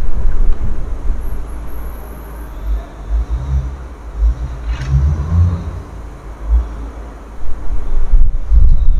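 Low rumble, loudest near the start and again near the end and quieter in between, with a faint click about five seconds in.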